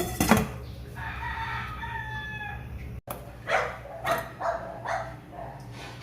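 Rooster crowing, one held call from about one second to nearly three seconds in, after a sharp crack at the start. In the second half comes a run of short animal calls about every half second.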